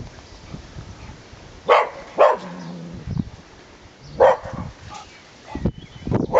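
Cocker spaniel barking: two quick barks about a second and a half in, another near the middle and one more at the very end. This is a guard dog's barking at passers-by.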